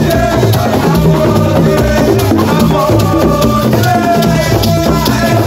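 Loud music with a busy percussion rhythm of drums and shaker-like rattles.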